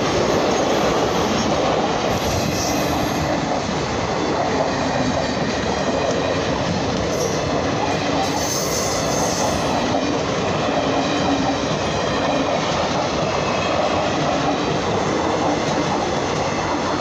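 Indian Railways express train's coaches running past close by: a loud, steady rumble and rattle of wheels on the rails.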